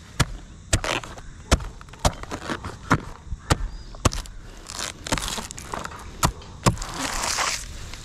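A blade chopping into the fibrous crown of a coconut palm, a dozen or so sharp strikes at about two a second, with crackling and rustling of dry frond bases and fibre between them and a longer rustle near the end.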